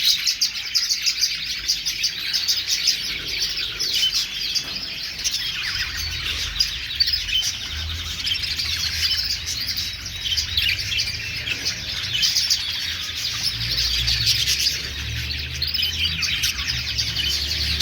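A flock of English budgerigars chattering and warbling continuously, many fast overlapping chirps at once. A low steady hum comes in about six seconds in beneath the chatter.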